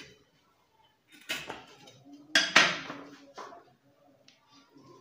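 Steel wrench clanking against the nuts and bracket of a chrome motorcycle silencer while its two 12 mm nuts are tightened: three sharp metallic clanks with a short ring, the loudest a little after two seconds in.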